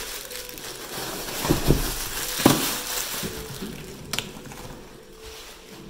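Unboxing noises: crinkling and rustling of packaging, with a few dull thumps as items are handled or set down and a short sharp click near the end.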